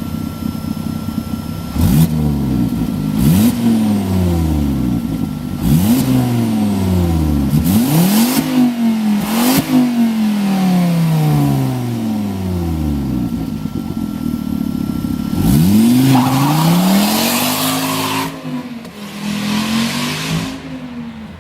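Volvo S40 T5's turbocharged 2.5 L inline-five, with a large exhaust leak at the flex pipe, being revved hard again and again during a burnout. The revs climb sharply and fall away more slowly, about eight times. A harsh rushing noise comes in twice, near the middle and again near the end.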